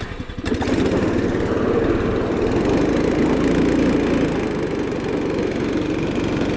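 A small motor running steadily for about six seconds, starting abruptly about half a second in and cutting off near the end.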